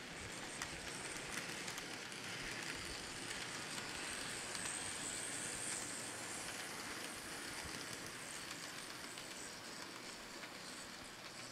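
N scale model coal train, a Kato GE ES44AC locomotive with loaded hopper cars, running past on the layout track: a steady whir and rolling rattle of small wheels on rail, louder around the middle and easing off toward the end.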